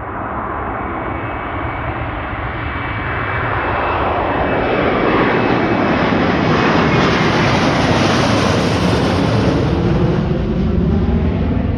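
Airbus A321 jet airliner taking off, its engine roar building to a peak as it passes and a whine sliding down in pitch.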